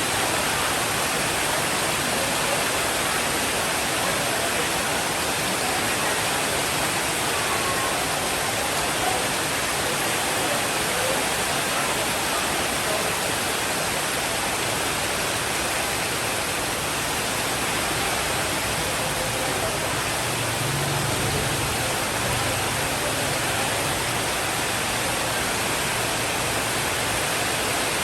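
Steady rainfall, an even unbroken hiss.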